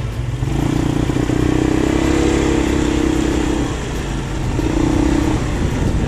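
Small motor scooter being ridden: a steady low motor hum with a humming tone that swells about half a second in, eases off in the middle and comes back briefly near the end, over a rushing wind and road noise.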